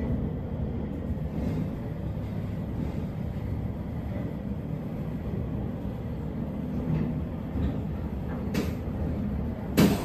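Glass atrium elevator car descending, its travel giving a steady low rumble. A faint click comes near the end, followed by a sharper, louder clunk.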